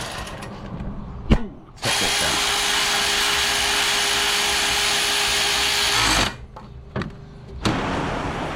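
A power tool running at a steady speed for about four seconds, then stopping abruptly, with a sharp click shortly before it starts.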